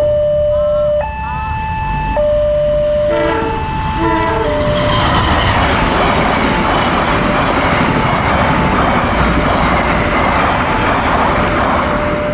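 Railway level-crossing alarm sounding an alternating two-tone warning, with a short train horn blast about three seconds in. From about five seconds in a passing train's steady rush of wheels on rail drowns the alarm out.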